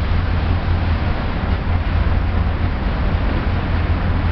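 Steady low hum of a CalMac ferry's engines while it sails, under an even rushing noise of wind and water.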